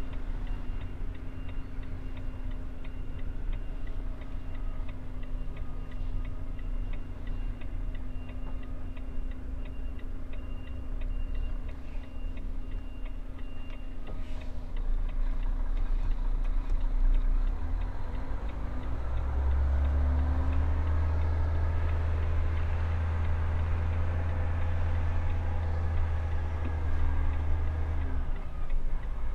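Truck engine running, heard from inside the cab, with the turn-signal indicator ticking steadily through the first half. About two-thirds of the way in the engine pulls harder and gets louder, then eases off near the end.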